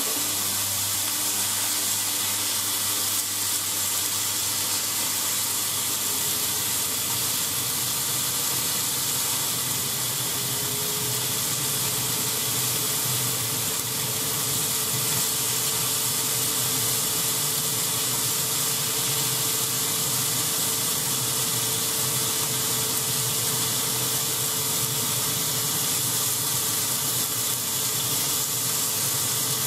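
Thin-sliced pork sizzling steadily in a hot nonstick frying pan as it fries.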